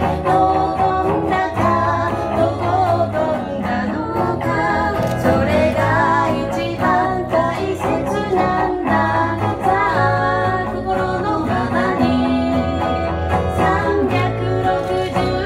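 A woman singing a pop song live into a microphone, with guitar accompaniment.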